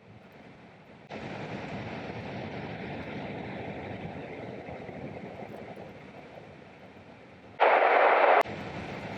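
Steady rushing noise of a car driving slowly over a snowy road, heard from inside the cabin, stepping up abruptly about a second in. Near the end a much louder hiss-like burst of noise, under a second long, cuts in and out sharply.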